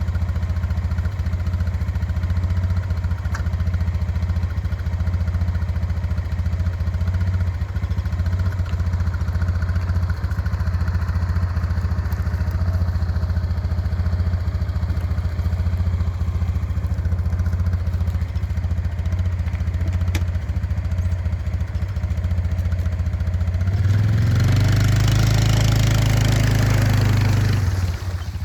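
An engine running steadily with a low hum. Near the end it surges louder for about four seconds with a rushing noise, then settles back.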